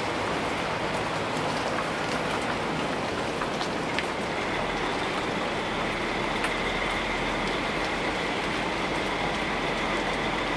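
Heavy low-loader lorry passing slowly close by: a steady hiss of engine and road noise, with a faint low hum and a faint steady high whine coming in about halfway through.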